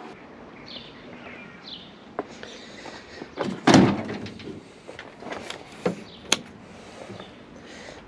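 A van's rear door being unlatched and swung open: one loud clunk a little under four seconds in, followed by a few lighter clicks and knocks.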